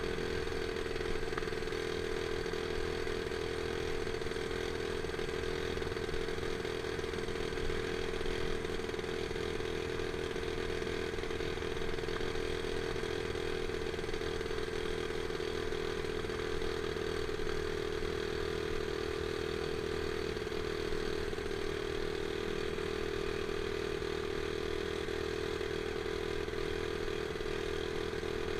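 Small Honda dirt bike's single-cylinder four-stroke engine running under way, held at a steady pitch with no revving up or down.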